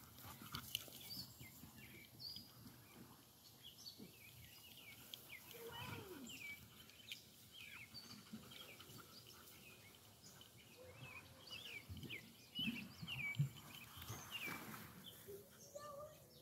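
Faint birds chirping, many short high calls scattered throughout, with a few soft knocks and rustles.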